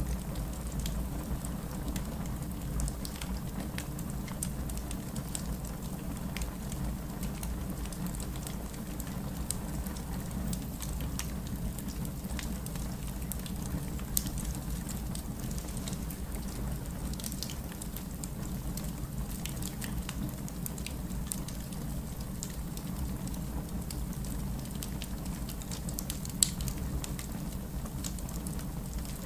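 Fire crackling in a fireplace: a steady low rumble of flames under scattered small snaps, with two louder pops, one about halfway and one near the end.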